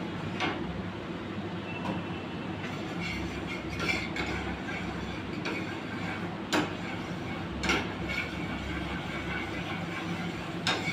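A metal ladle stirring in a steel wok, clanking sharply against the pan several times over a steady low rumble from the gas burner and kitchen exhaust hood.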